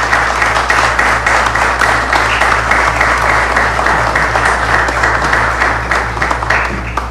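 Audience applauding, a dense steady clapping that thins out near the end, over a steady low hum.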